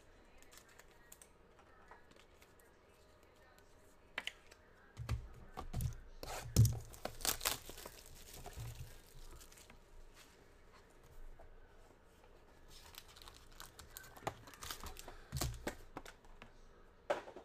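Sealed trading card boxes being handled and opened: wrapping and cardboard tearing and crinkling in two spells, with taps and knocks of the boxes being moved and set down.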